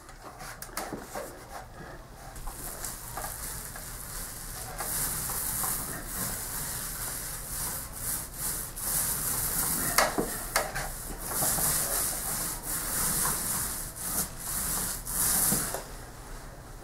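Paint roller loaded with flat white top coat rolling across a textured drywall ceiling. It makes a rasping hiss that swells and eases with the strokes, and a couple of sharp clicks come about two-thirds of the way through.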